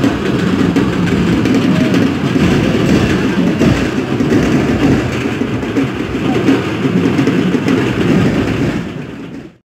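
Loud, dense din of a huge festival crowd, a steady rumbling mass of many voices and movement that fades out near the end.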